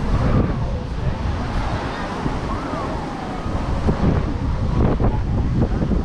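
Wind buffeting the microphone with a low rumble, over the wash of surf and the voices of people on the beach.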